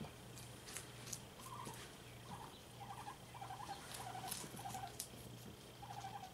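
Guinea pigs giving short, soft squeaks over and over, about two a second from a second and a half in, while they chew cucumber with faint crisp crunching clicks.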